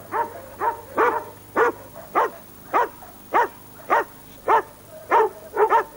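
A dog barking over and over in an even rhythm, roughly one bark every half second, with two quick barks close together near the end.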